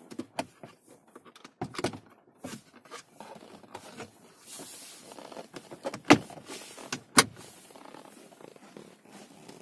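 Plastic glovebox of a Jeep Patriot being put back in place and latched shut: light knocks and scraping, then two sharp plastic snaps about a second apart.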